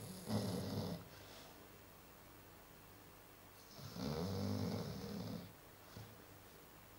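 Chow Chow dog snoring in its sleep: one snore ends about a second in, and a second snore comes about four seconds in and lasts about a second and a half.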